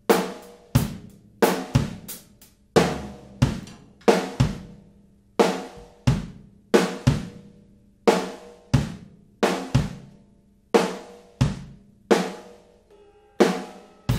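Acoustic drum kit playing a steady beat of kick, snare, hi-hat and cymbal hits, captured only by a mid-side stereo microphone pair in the live room (a Neumann KM184 as the mid mic), with no close mics on the kit.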